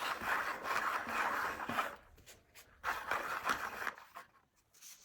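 Dry rustling and scraping, like things being handled or rubbed, in two stretches: one at the start lasting about two seconds, and a shorter one about three seconds in.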